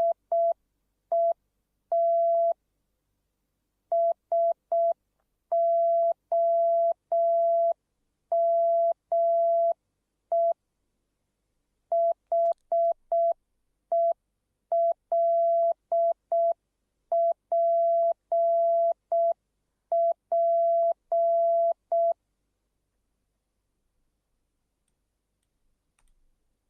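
Morse code played as a steady electronic beep of one mid pitch, keyed in short dits and longer dahs with gaps between letters and words; it stops a few seconds before the end.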